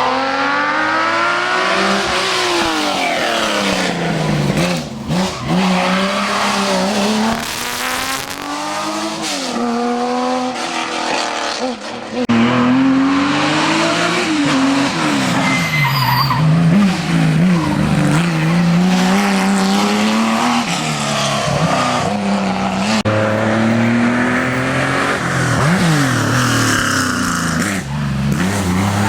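Historic rally car engines at full throttle on a special stage, the revs climbing and dropping back again and again through gear changes and corners. The sound gets louder about twelve seconds in.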